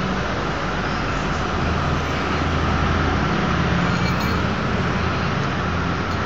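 Steady, unbroken roar of background noise with a low hum underneath, with no distinct events.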